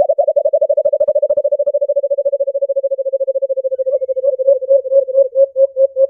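White-eared brown dove calling: a long run of short, low hoots, fast at first and slowing to a few a second after about four seconds.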